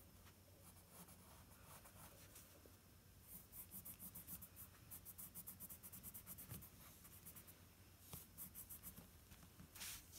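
Faint pencil scratching on paper in quick, short repeated strokes. It comes in two runs: from about three seconds in to about seven, and again briefly near the end.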